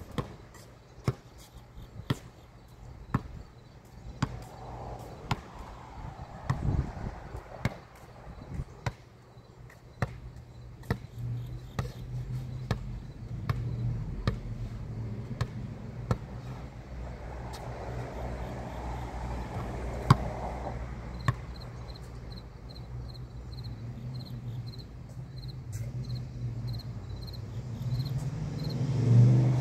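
A basketball bouncing on a concrete court: sharp thuds at irregular spacing, frequent in the first third and sparser later. Under them is a steady low rumble that swells near the end, and faint high rhythmic chirping comes in during the second half.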